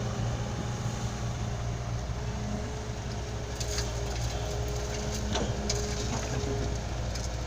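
A heavy machine's diesel engine running at a steady speed, with a few light clicks and rattles in the middle.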